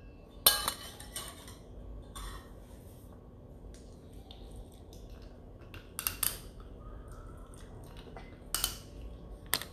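A utensil clinking against a mixing bowl now and then while the milk, beaten egg and melted butter are mixed together: scattered sharp clinks, the loudest about half a second in, with a pair about six seconds in.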